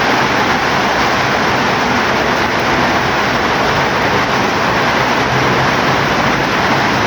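Heavy rain falling, a steady even rush with no breaks.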